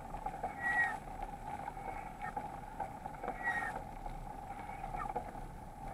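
Riding noise of a mountain bike picked up by an action camera: a steady muffled drone with scattered light rattling clicks, and two short high chirps, one about a second in and one past the middle.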